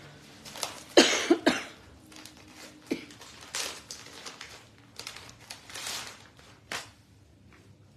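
A person coughing, three quick coughs about a second in, followed by a few quieter short noises.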